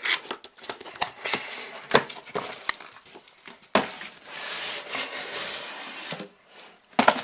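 Cardboard box being opened by hand: sharp taps and knocks of the lid and flaps, then a few seconds of rustling and scraping as cardboard slides against cardboard, with a couple more knocks near the end.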